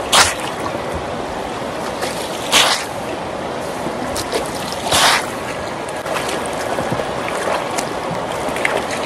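Shallow river running steadily over stones, with three loud splashes as a fabric car floor mat is swung and slapped into the water to rinse it: right at the start, about two and a half seconds in, and about five seconds in.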